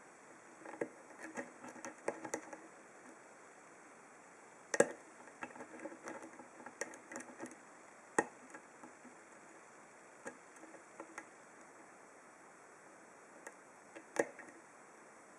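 Steel lock pick working the pins of a brass Corbin 5-pin padlock under tension: clusters of light ticks and scrapes with sharper clicks, the loudest about five seconds in, another about eight seconds in, and one near the end.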